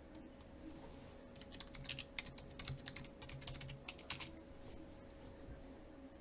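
Computer keyboard typing: two separate clicks, then a quick run of keystrokes for about three seconds, ending in two louder clicks. The sound is faint.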